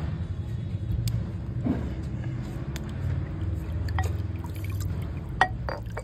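Milky liquid dripping and trickling into a clay bowl as a cloth bundle of ground sardai paste is squeezed by hand, with scattered drips and small splashes over a steady low hum.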